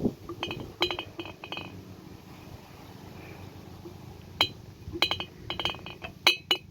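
Glass jars clinking against each other: a run of light clinks in the first second and a half, then another run of sharper clinks from about four and a half seconds in.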